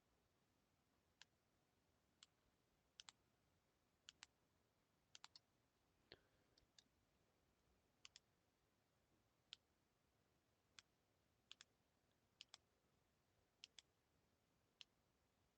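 Quiet computer mouse clicks, scattered single clicks and quick double clicks, roughly one or two a second, with one softer knock about six seconds in.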